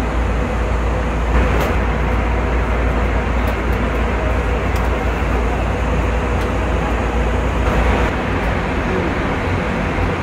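Steady loud cabin noise inside an Airbus A320neo, with a deep rumble that drops away about eight seconds in.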